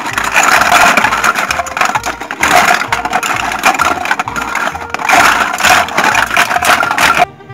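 Hard plastic toy fruit pieces clattering and scraping against each other and a plastic basin as hands stir them, a dense rattle that stops abruptly about seven seconds in.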